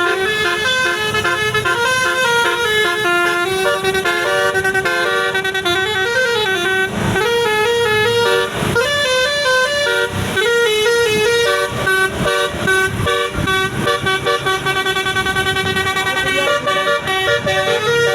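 A bus's 'telolet basuri' multi-tone horn playing a tune, its notes stepping up and down without a break.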